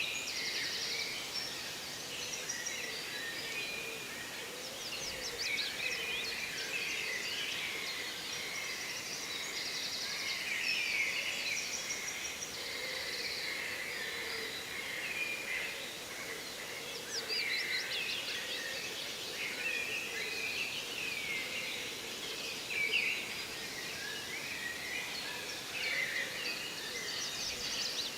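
Many wild birds singing and calling at once, a dense chorus of overlapping chirps, whistles and quick trills.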